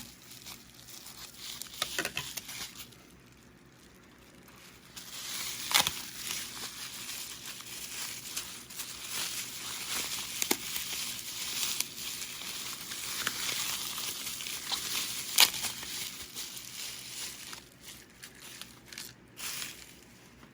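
Packaging crinkling, crackling and tearing with scattered sharp clicks as a small mail package is opened by hand. It goes quiet briefly a few seconds in.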